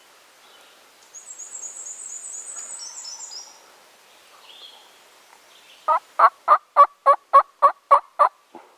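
A songbird sings a high trill, then a loud series of about nine evenly spaced turkey yelps, roughly three a second.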